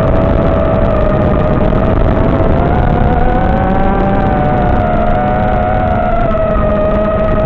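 Electric motors and propellers of an FPV drone heard from on board: several steady whines at slightly different pitches, drifting a little up and down, over a constant rush of wind and airflow.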